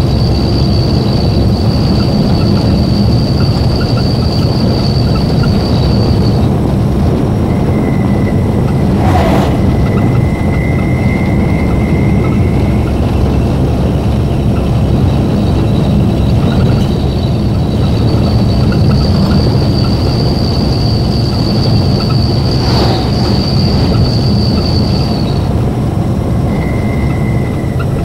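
Truck engine and road noise heard from inside the cab while cruising on the highway, a steady low rumble. A thin high whine comes and goes over it.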